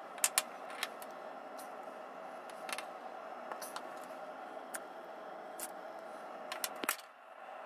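Rusty needle-nose pliers clicking as they are handled, worked open and shut and set down on a wooden table: a dozen or so sharp metallic ticks, loudest near the start and near the end, over a steady background hum.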